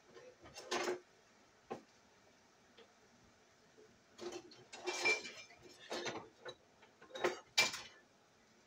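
Kitchen clatter: dishes, pans and utensils knocking and clinking as they are handled and set down, in irregular clusters with a lull about two to four seconds in. A few of the clinks ring briefly.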